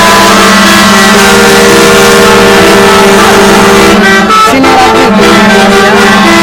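Telolet musical bus horns playing a tune, very loud: notes stepping up and down over a held low note, which drops out for about a second around four seconds in.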